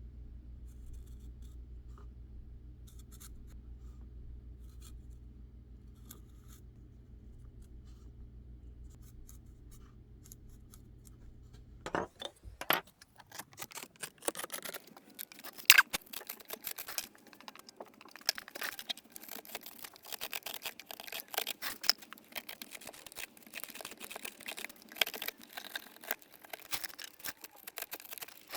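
A low steady hum, then about halfway through a carving knife starts cutting into hard white birch: quick, irregular scratching and scraping strokes with sharp clicks as chips come away.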